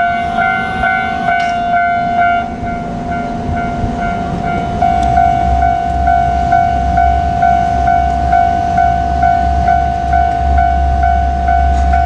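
Japanese level-crossing alarm ringing its electronic two-tone bell at a little over two strikes a second. About five seconds in, the low engine rumble of an approaching JR Kyushu KiHa 47 diesel railcar comes in underneath.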